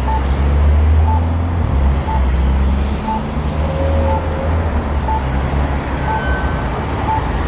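Articulated city bus's engine running as it drives past in traffic, loudest about a second in. A short crossing-signal beep repeats about once a second.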